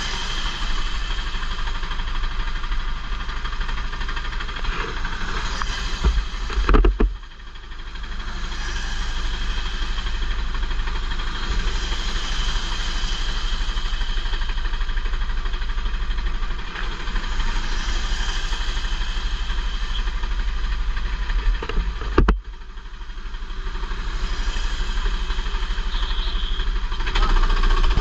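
Racing kart engine running hard on track, heard from a helmet-mounted camera. Twice, about seven seconds in and again about twenty-two seconds in, the engine note drops off suddenly as the throttle is lifted for a corner, then builds back up as the kart accelerates out.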